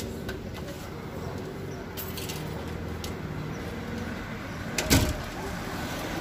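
Street background noise with a steady low rumble and a few light clicks, then a sharp thump about five seconds in, the loudest sound.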